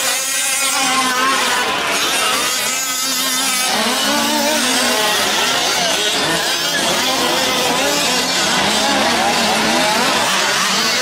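Several 5th-scale gas RC trucks racing together, their small two-stroke engines revving up and down and overlapping.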